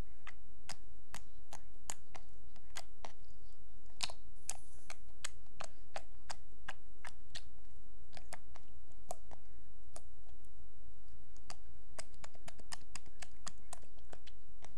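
Fingers pressing and squishing a soft, wet, jiggly slime, making irregular sharp clicks and pops at about three a second.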